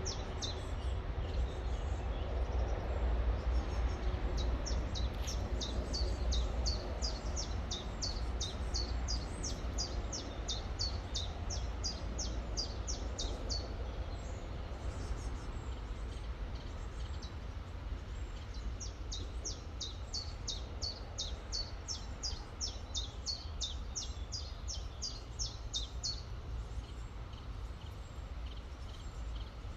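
A small songbird singing long runs of quick, high, downslurred notes, about three a second, pausing for a few seconds midway, over the steady rush of river water and a low rumble.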